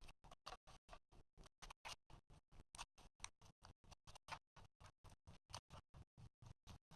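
Slime being squished and stretched by hand, making a quick run of small wet clicks and pops, about five or six a second and uneven in strength.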